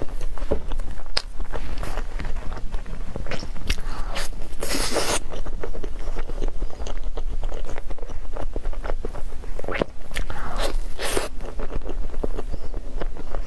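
Close-up mouth sounds of biting and chewing a soft blueberry towel-roll crepe cake: many short wet clicks and smacks, with louder bursts about five seconds in and again near eleven seconds.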